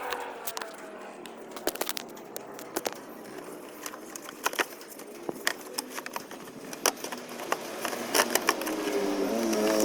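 Scattered sharp clicks and light knocks, then a car engine sound comes in over the last couple of seconds, rising in pitch.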